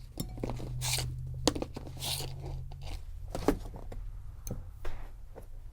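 Irregular clicks and short rasping scrapes of a small thin file and hand tools worked against the steel bolt of a Remington 581 rifle, smoothing burrs that drag the firing pin, over a low steady hum.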